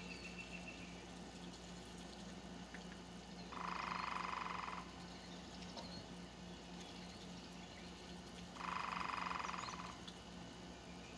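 Two evenly pulsed trills from a calling frog, each a little over a second long and about five seconds apart.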